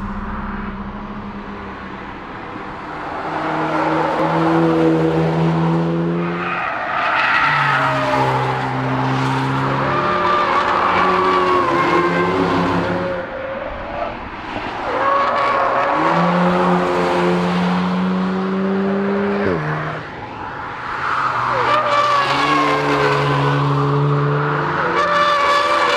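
Volkswagen Golf R's turbocharged 2.0-litre four-cylinder engine running hard under load. Its note holds or climbs, then drops abruptly at gear changes several times over.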